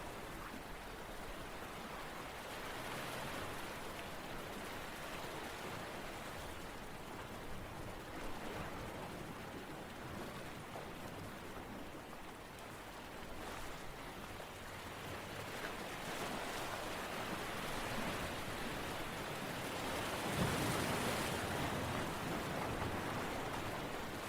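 Steady rushing noise of water, swelling louder for a couple of seconds near the end.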